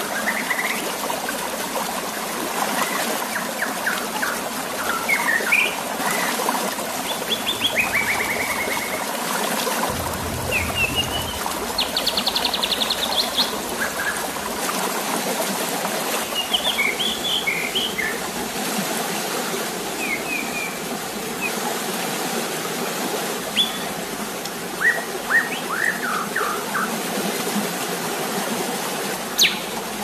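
Water splashing and trickling as a white-rumped shama bathes in a shallow tray, with short bird chirps and trills now and then over the steady water sound.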